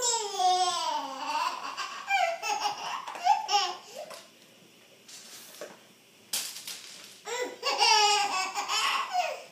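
Toddler laughing with delight, a high-pitched giggling laugh in two bouts with a short lull between.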